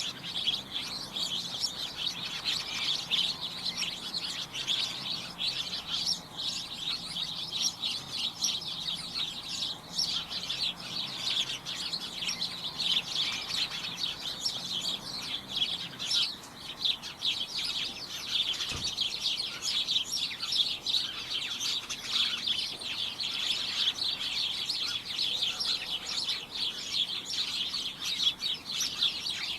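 A flock of small birds chirping constantly, many short overlapping high chirps forming a dense chatter.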